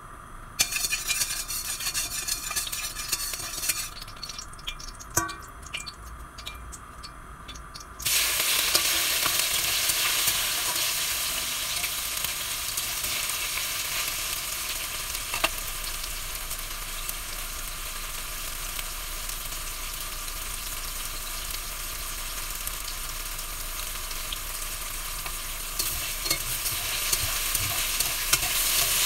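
Tofu cubes frying in hot oil in a steel wok to crisp them, with a spatula stirring them. The frying crackles with scattered pops at first, then about eight seconds in the sizzle jumps suddenly louder and holds steady.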